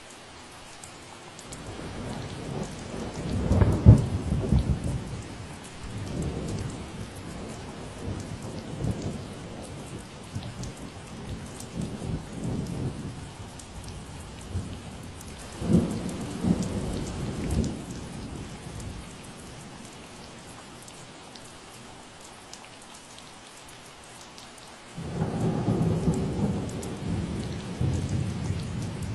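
Steady rain falling, with three low rolls of thunder: the loudest a few seconds in, another about halfway through, and a third near the end.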